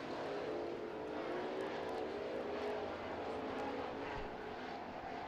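Super Truck race trucks' engines running at speed around a dirt oval, a steady drone that rises and falls slightly in pitch.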